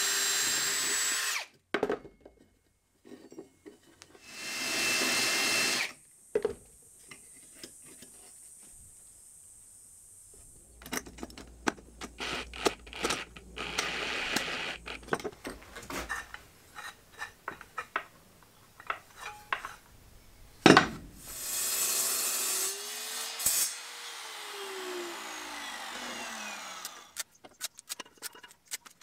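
Cordless drill boring through aluminum brackets in short runs, then a cordless impact driver running bolts into aluminum angle. Between them come clicks and knocks of metal parts being handled, with one sharp knock about two-thirds of the way in.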